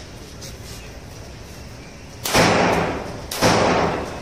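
Two 9 mm shots from a Glock 17 Gen 5 pistol, about a second apart and starting a little past halfway, each followed by a long echoing tail as the rounds are fired down into a brick-lined well.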